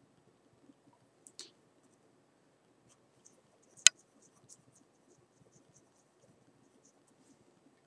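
Mechanical pencil on drawing paper: a sharp click a little before four seconds in, the loudest sound, with a smaller click about a second and a half in. After the loud click come faint, quick scratchy ticks of short, light pencil strokes.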